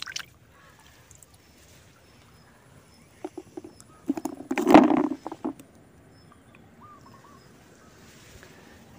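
Apple snail shells knocking and splashing as a snail is put into a plastic bucket holding water and other snails: a few light clicks, then a cluster of knocks about four to five seconds in. A brief water splash at the start as the hand lifts the snail from the stream.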